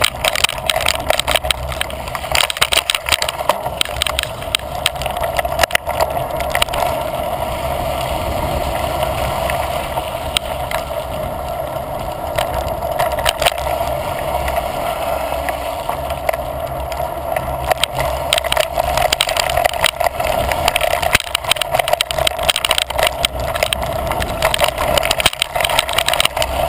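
Mountain bike ridden along a dirt and gravel trail: knobby tyres rumbling over the ground with frequent rattles and clicks from the bike and loose stones, over a steady rushing noise.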